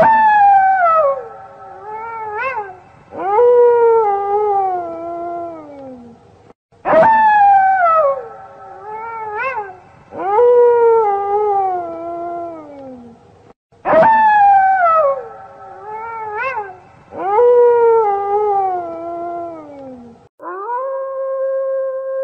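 Wolf howling: long calls that slide down in pitch, with a short rising yelp between them. The same sequence of howls comes around three times, about every seven seconds, and near the end a long, nearly level howl begins.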